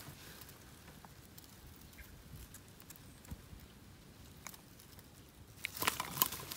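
Catfish being grabbed by hand as it wriggles: faint scattered clicks and rustling, then a quick flurry of sharp clicks and scrapes near the end.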